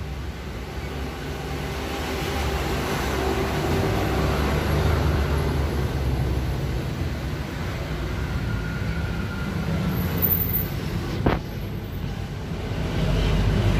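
Street traffic going by: a steady low rumble of passing vehicles that swells near the end as a truck passes. A single sharp click sounds a little past the middle.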